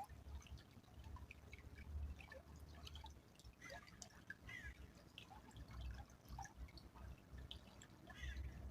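Faint trickle of a small stream: water dripping and plinking in many short, irregular drops. A low, unsteady rumble sits underneath.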